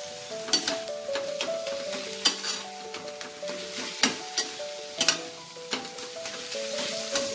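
Metal spatula scraping and knocking against a stainless steel pan while stirring greens frying in mustard oil, which sizzle softly. There are about a dozen irregular clacks, the loudest a little past two seconds and around four and five seconds in. A soft background music melody plays throughout.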